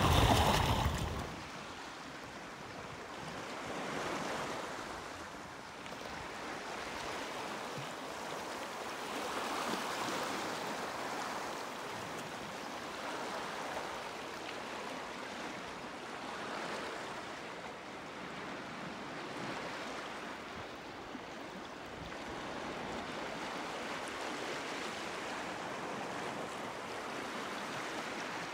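Small waves washing on a shore: a steady rush that swells and eases every few seconds. A louder, deeper rush cuts off about a second in.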